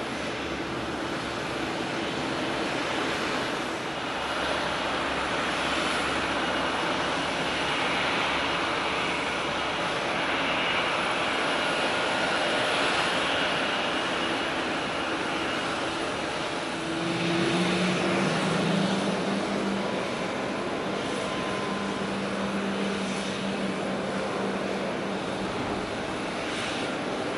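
Jet airliner engines running across the airfield: a steady broad noise with a faint high whine. A lower engine tone comes in about two-thirds of the way through, when the sound swells slightly.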